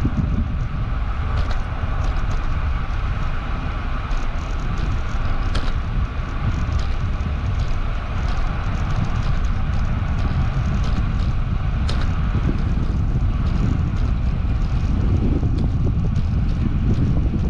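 Wind rushing over the microphone of a camera riding along on a moving bicycle, a steady low rumble mixed with road noise and a few faint ticks.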